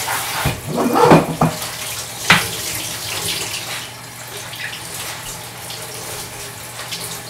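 Kitchen faucet running water onto collard greens in a colander in the sink, with a few knocks about a second in and a sharp clack a little after two seconds as the colander is handled.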